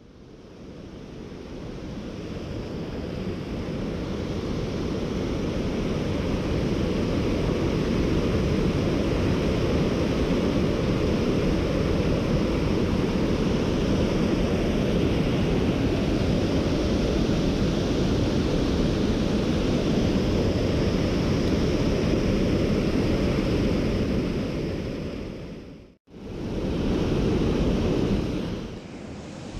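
Rushing water of a mountain torrent, a steady full rush heavy in the low end. It fades in over the first several seconds, cuts out sharply about 26 seconds in, then comes back briefly.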